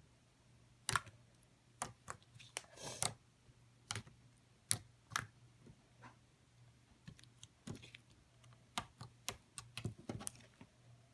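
Light pink slime being pressed and poked by hand, making irregular sticky clicks and pops with a few short squishes.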